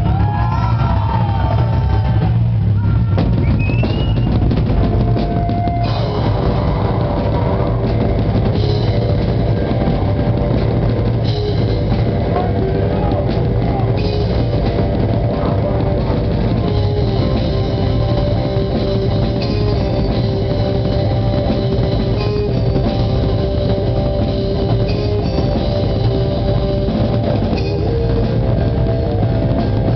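Live rock band playing loud: electric guitars over a drum kit with bass drum and cymbals, with held guitar notes ringing out from about six seconds in.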